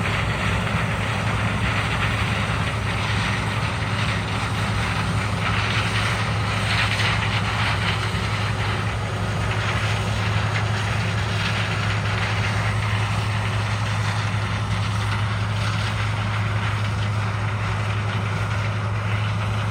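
John Deere 9750STS combine running under load while harvesting corn: a steady drone of its diesel engine and threshing machinery, with a constant low hum.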